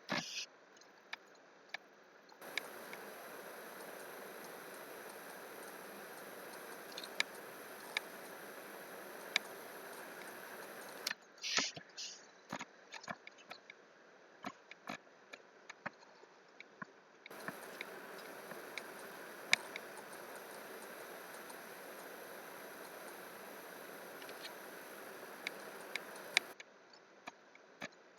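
Scattered clicks of a computer mouse and keyboard, with a steady hiss that switches on abruptly twice and cuts off again after several seconds each time.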